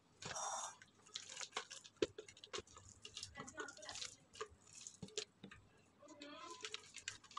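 Plastic spatula scraping and knocking against the glass jar of a food chopper while thick minced chicken mixture is scraped out into a bowl: a string of irregular clicks, taps and short scrapes.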